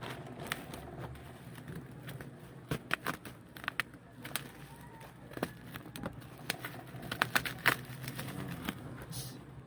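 Bubble wrap and plastic packaging being handled and unwrapped, giving irregular crinkles and sharp clicks.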